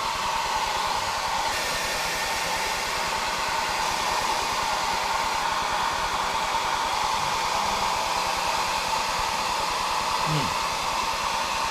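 Handheld hair dryer running steadily on high, blowing hot air to soften the adhesive under a stuck camera mount: an even, unbroken rushing whine.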